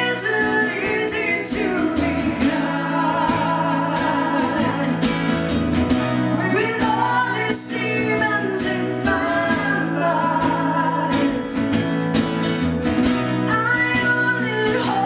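A woman singing a song, accompanied by strummed acoustic guitars.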